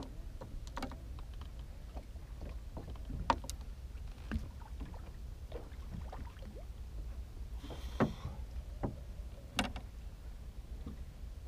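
Scattered light clicks and knocks of fishing tackle and line being handled in a small boat, over a low steady rumble.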